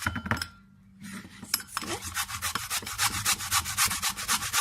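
White root vegetable being finely grated on a hand grater: quick, even scraping strokes at about six a second, which stop about half a second in and start again about a second later.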